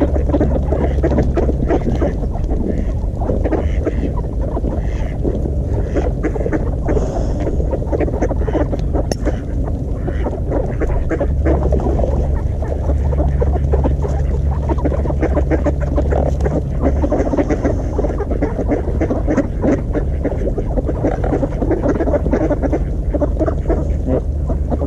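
A flock of ducks quacking and calling continuously while feeding, over a steady low rumble.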